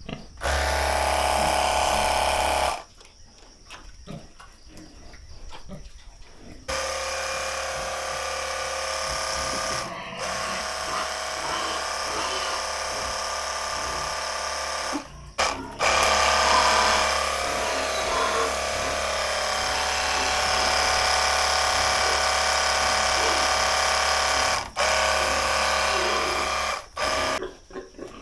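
Pressure washer used for cleaning a pig pen, its motor and pump running with a steady whine and low hum. It stops for a few seconds near the start, then cuts out and restarts briefly several times.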